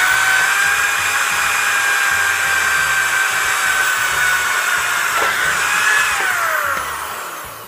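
Corded electric drill running with a steady high whine as it bores a bolt hole through a wooden block into a steel locker's side, using a titanium bit that the driller thinks is nearly worn out. About six seconds in the pitch rises slightly, then falls away as the motor winds down.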